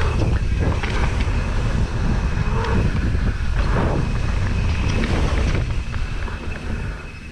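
Mountain bike descending a downhill trail: wind buffeting the camera microphone and tyres rumbling over dirt, with scattered knocks and rattles from the bike. It quietens over the last second or so as the bike slows.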